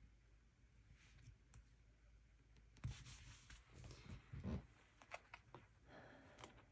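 Near silence at first, then from about three seconds in faint rustling and a few light taps of paper as planner stickers and pages are handled.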